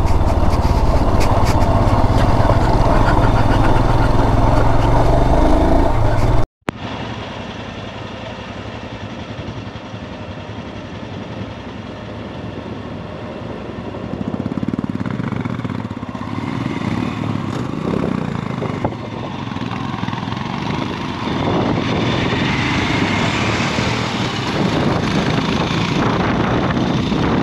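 Motorcycle engine running under way on a gravel track, with wind and road noise on the mounted camera's microphone. About six and a half seconds in the sound cuts out for an instant and comes back quieter, then slowly grows louder toward the end.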